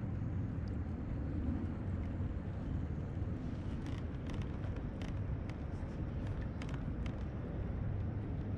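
Steady low wind rumble on the microphone over open water. From about halfway through come scattered light clicks and ticks from handling the rod and reel while a fish is being played.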